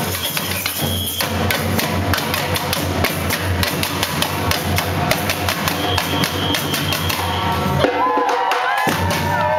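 A group of drummers playing a fast, dense rhythm together. They stop abruptly about eight seconds in, and the crowd breaks into cheering, shouts and whoops.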